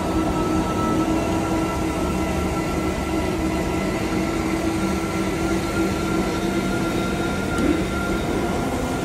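Panama Canal electric towing locomotive running along its rails beside the lock, a steady hum with a thin high whine.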